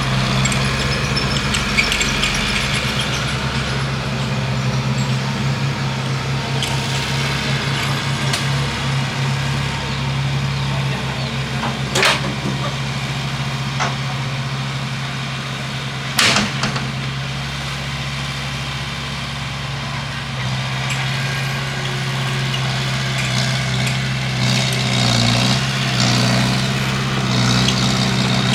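Bulldozer's diesel engine running steadily, with two sharp knocks about four seconds apart midway.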